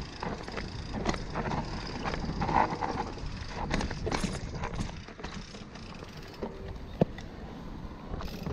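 Specialized Turbo Levo SL e-mountain bike ridden over a rough dirt trail: tyres rumbling on the ground, with irregular clattering knocks and clicks from the bike as it crosses bumps.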